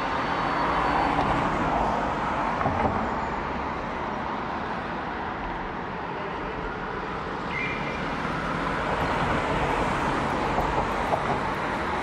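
Steady city road-traffic noise mixed with the general din of a big railway station. A brief high tone sounds about seven and a half seconds in.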